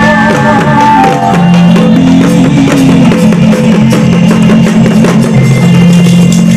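Live music through a PA loudspeaker: a held, wavering sung line ends about a second in, then sustained low instrumental tones carry on over steady drum beats.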